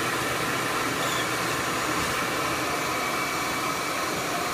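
Bee vacuum running steadily, used to suck loose honey bees out of a cluster.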